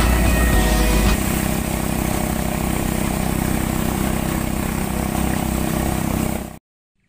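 A small boat's motor running steadily, coming in as music ends about a second in, then cut off suddenly near the end.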